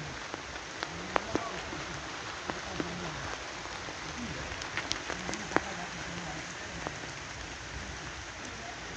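Steady rain falling, with scattered sharp taps of drops striking a hard surface close by, the loudest about a second in and again past the middle.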